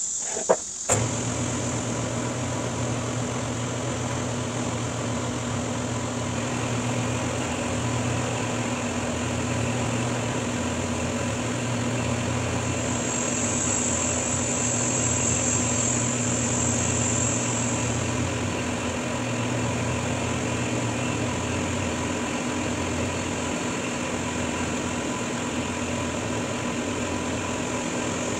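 Milling machine running, its end mill cutting along the edge of a metal bar, with a steady machine hum and whine. A couple of sharp clicks come in the first second before the steady running starts. The high cutting hiss grows brighter for a few seconds around the middle.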